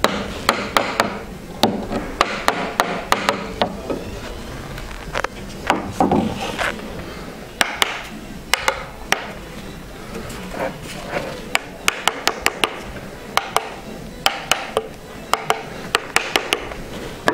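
Small hammer tapping the slotted wooden bars of a canvas stretcher frame together at the corners: sharp light wooden knocks, in quick runs of a few taps with short pauses between them.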